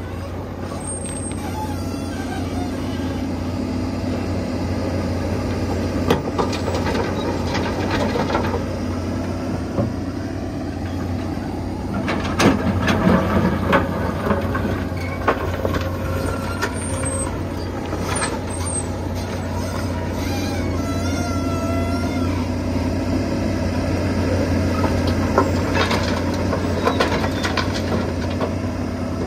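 Volvo EC210 excavator's diesel engine running steadily under load, with short hydraulic whines, while its bucket digs into a rock stockpile. Loose rock clatters and knocks in several clusters as the bucket scrapes and scoops.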